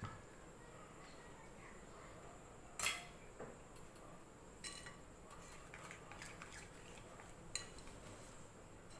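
A few scattered clinks and knocks of metal kitchen utensils and dishes, such as tongs being set down and a bowl being handled, the loudest about three seconds in.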